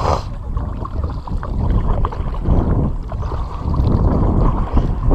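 Kayak paddle strokes dipping and splashing on alternating sides, swelling every second or two, over a steady low wind rumble on a microphone muffled inside a waterproof camera case.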